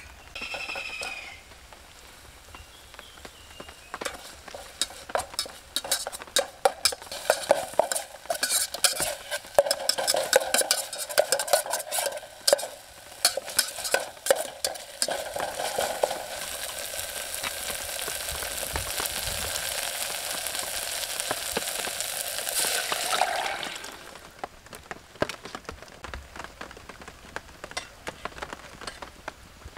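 Chili being roasted in a hot pan: a utensil scrapes and taps against the pan in quick, uneven strokes, then a steady sizzle runs for several seconds and cuts off sharply, followed by a few lighter taps.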